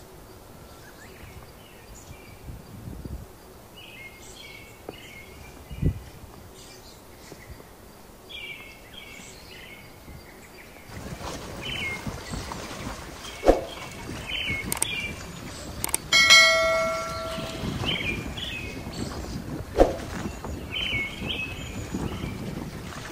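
Small birds singing in short chirping phrases, with a bell struck once about two-thirds of the way through, its ring fading over a second or so. A few sharp knocks and a rising background hiss join in the second half.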